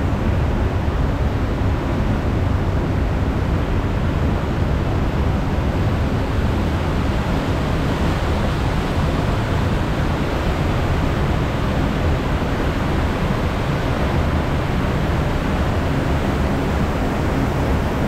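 Steady rushing, rumbling noise as a round river rapids raft rides up an inclined conveyor lift, the lift machinery and running water blending into one unbroken sound.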